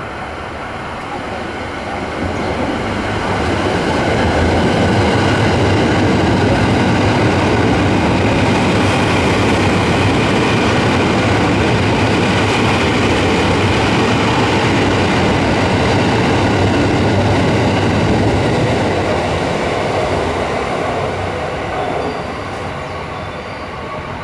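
A JR 285 series Sunrise Seto sleeper express electric train passing without stopping. Its running noise of wheels on the rails builds over the first few seconds, stays loud while the cars go by, and fades away from about 18 seconds in.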